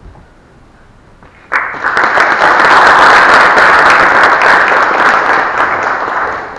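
Audience applauding. The applause starts suddenly about a second and a half in and fades out near the end.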